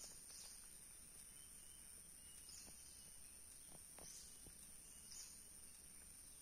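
Near silence: faint outdoor background with a steady high-pitched hum, like insects, and a few soft high chirps.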